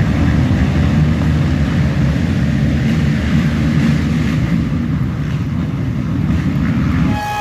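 Racing ATV engines running hard close by: a loud, rough, steady rumble that cuts off abruptly near the end.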